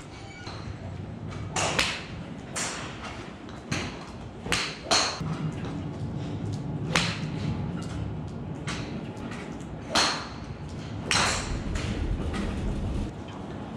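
Golf irons striking balls off practice mats at a driving range: about eight sharp cracks, irregularly spaced, some louder and nearer than others, from more than one hitting bay.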